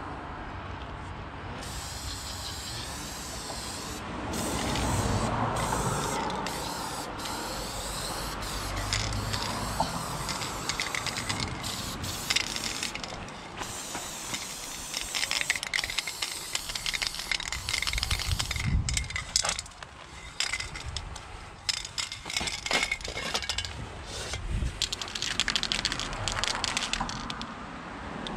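Aerosol spray paint hissing out through a New York fat cap in long strokes broken by short pauses, starting about two seconds in; the later strokes are shorter and choppier.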